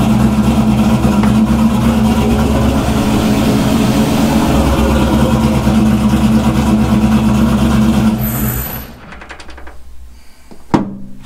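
LS V8 idling steadily at about 1000 rpm on its first start, then shut off about eight seconds in, after which it goes much quieter. A single sharp click follows near the end.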